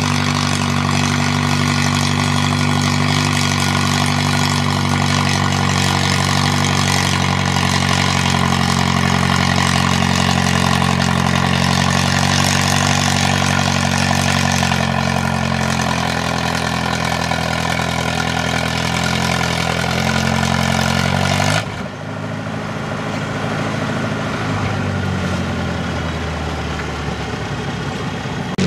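Farmall tractor engine working hard under load while pulling a weight-transfer sled, holding a steady note that sags slightly in pitch as the sled bears down. About three-quarters of the way through, the engine drops suddenly to a lower, quieter note as the pull ends.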